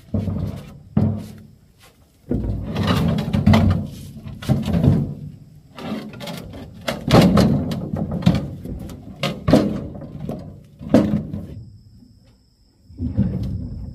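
Irregular heavy thuds and clattering knocks, some short and some running on for a second or more, with a brief lull near the end.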